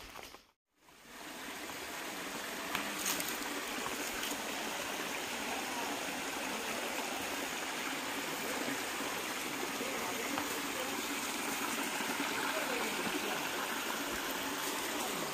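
Steady rush of water from a waterfall, fading in after a brief cut to silence about half a second in.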